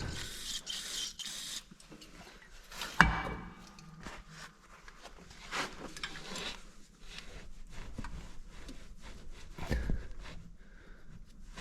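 Hands working around a compact tractor's hydraulic dipstick: a short hiss at the start, one sharp knock about 3 seconds in, then scattered light knocks, rubbing and scraping.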